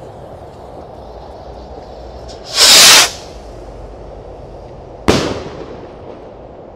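Small consumer skyrocket in flight: a loud rushing hiss lasting well under a second, then, about two and a half seconds later, a single sharp bang as its small burst charge breaks open the star shell, with a short echoing tail.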